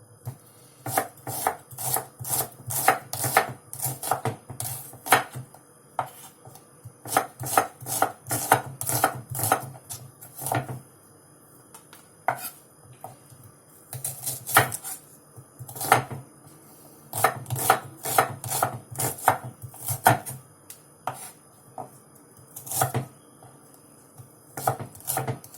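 Knife slicing shallots on a cutting board: sharp knocks of the blade on the board, several a second, in runs with short pauses.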